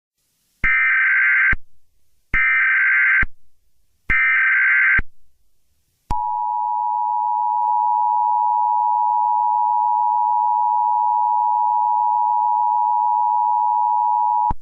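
Emergency Alert System tones: three short, identical bursts of harsh digital data screech (the SAME header), then the two-tone attention signal, two close steady tones sounding together. The attention signal holds for about eight seconds and cuts off sharply.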